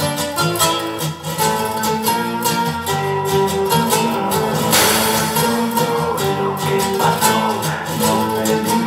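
Music played back through a pair of tall homemade isodynamic loudspeakers, heard in the room: a quick run of plucked notes over low bass lines, with a hissing swell about five seconds in.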